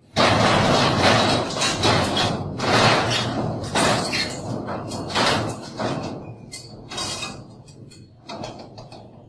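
A dog's claws scrabbling and scraping against a sheet-metal gate as it climbs, the gate rattling and banging. The racket is densest in the first few seconds and thins out toward the end into separate scrapes and knocks.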